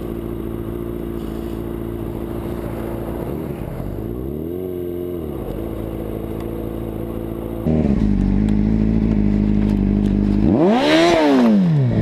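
Motorcycle engine running steadily, with a brief rise and fall in revs about four seconds in. After an abrupt change to a louder engine sound at about eight seconds, the engine is revved sharply up and back down near the end.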